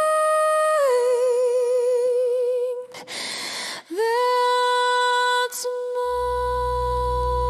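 A woman's voice singing a wordless held note that slides down and wavers in vibrato, then a breath about three seconds in, then one long steady note. A low drone comes in beneath it near the end.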